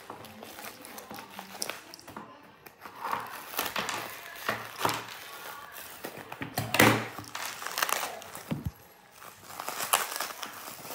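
Plastic wrapping crinkling and rustling in the hands as a packaged item is unwrapped, in irregular crackles with the loudest about seven seconds in.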